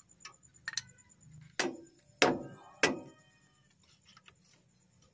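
Metal tool striking the steel wheel hub of a Howo dump truck: a few light clicks, then three sharp metallic knocks a little over half a second apart, the last two ringing briefly.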